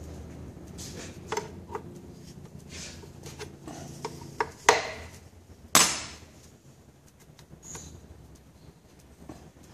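Metal hand tools clicking and clinking against the fittings of a Graco 495 ST airless sprayer's pump as the hose is undone, with two sharp metal clanks about halfway through, the second ringing on briefly.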